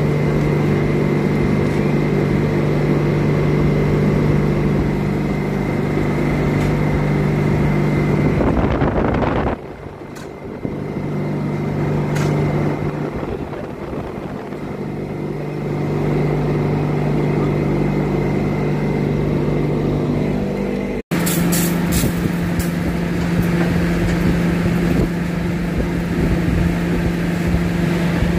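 Fire engine's engine running steadily at high speed to drive its water pump while a hose plays onto a fire, with a constant hiss of spray over the drone; the drone drops and shifts in pitch at cuts about ten and twenty-one seconds in.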